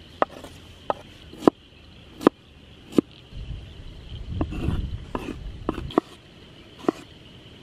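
Kitchen knife chopping vegetables on a cutting board: about ten separate sharp knocks at an uneven pace, roughly one every half second to second. A steady high-pitched drone runs underneath, with a low rumble for a couple of seconds around the middle.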